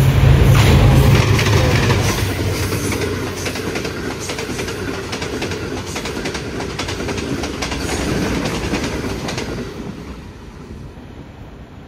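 Passenger express running through a station at speed behind a GE U20 diesel-electric locomotive. A heavy low rumble lasts the first couple of seconds, then the coach wheels clack rapidly over the rail joints. The sound fades away after about ten seconds.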